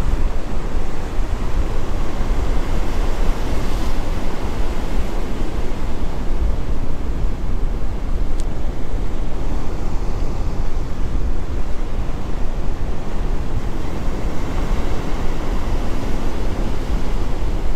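Steady wind buffeting the microphone, with surf washing and breaking below.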